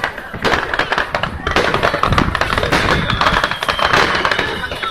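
Fireworks display: many rapid crackles and bangs, with a heavier boom about two seconds in.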